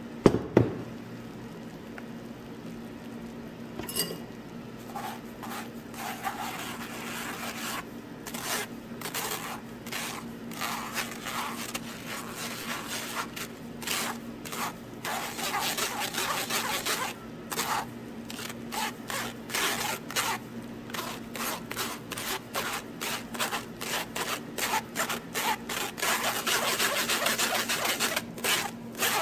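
A utensil scraping and rubbing against a fine metal mesh sieve, working egg and coconut-milk custard mixture through into a glass bowl. It comes in quick repeated strokes that grow denser toward the end. A single sharp knock, the loudest sound, comes just after the start.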